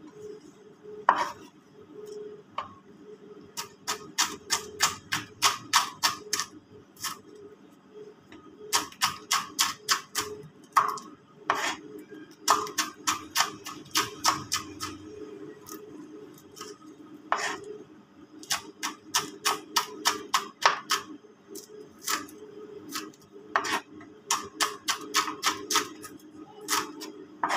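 Kitchen knife chopping green chillies on a cutting board: runs of quick, even strikes, about four a second, broken by short pauses.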